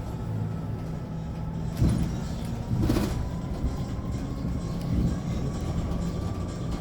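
Inside a Hyundai Elec City 2 electric bus on the move: a steady high motor whine over low road rumble, with a couple of knocks or rattles about two and three seconds in.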